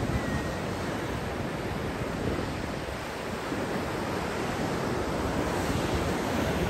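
Ocean surf breaking and washing in below a pier: a steady rush of waves.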